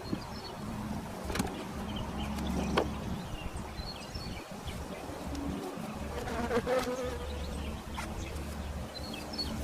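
Swarm of honey bees buzzing around an open hive, a steady hum that rises and falls, with a few light knocks.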